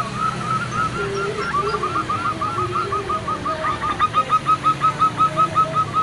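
Female zebra dove (perkutut) calling in a long run of short, evenly repeated notes, about five a second, with a few lower coos mixed in. It is a female's call used to draw males into calling.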